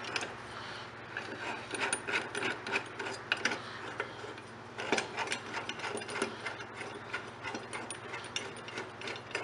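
Small metallic clicks and scraping as a two-jaw puller's forcing screw is turned by hand and tightened against a Honda HRC216 mower's blade clutch, to pull the stuck blade holder off the crankshaft. The clicking pauses briefly near the middle, then resumes.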